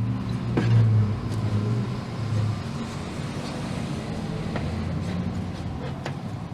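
A steady low mechanical hum, like an engine running, with a few light clicks.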